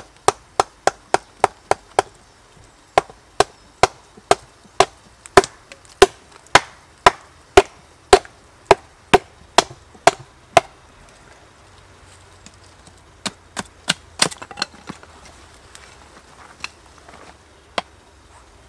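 Wooden baton hammering on the spine of a small fixed-blade knife (Heidi Production Knife No.1) to drive it through a piece of wood on a chopping stump. A steady run of sharp wooden knocks comes at about two a second for some ten seconds, then stops. After a pause there is a quicker cluster of knocks, and a few single ones near the end.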